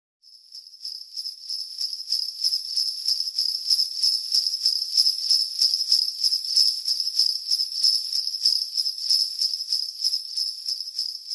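Sleigh bells shaken in a steady rhythm, about four shakes a second, with a bright high jingle, fading in over the first couple of seconds.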